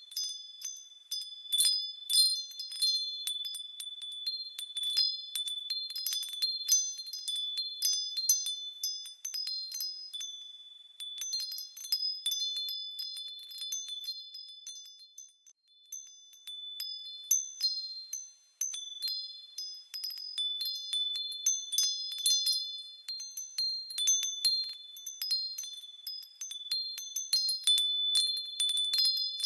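Wind chimes tinkling in an irregular scatter of bright, high ringing strikes that come in clusters, with a short lull about halfway through.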